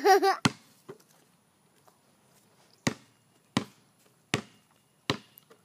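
A series of sharp, short knocks: two close together near the start, then a steady run of about one every three-quarters of a second.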